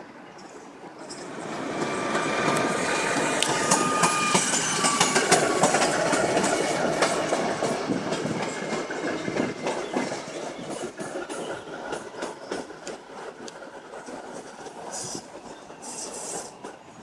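Passenger train rolling past, its wheels clattering over rail joints and points with a brief squeal early on. The train grows louder over the first couple of seconds and then slowly fades as it moves away.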